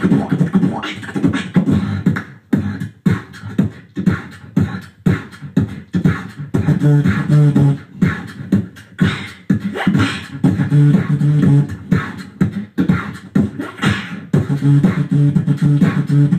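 Beatboxing into handheld microphones: rapid, dense vocal kicks, snares and clicks. A second beatboxer joins partway through, and from about six and a half seconds in a low, held, pitched bass hum comes and goes under the percussion.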